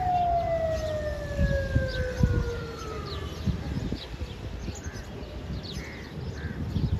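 Passenger train slowing under its brakes: a high whine falling steadily in pitch dies away about three seconds in, over low knocks and rumble of wheels on the rails.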